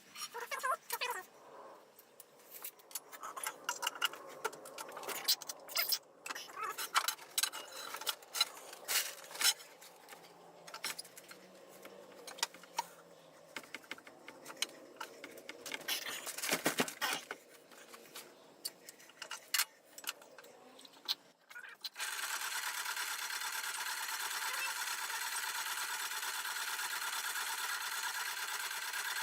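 Metal pieces clinking and knocking as they are handled and set in place, then near the end a power hacksaw machine starts abruptly and runs steadily, cutting a small piece off a metal bar.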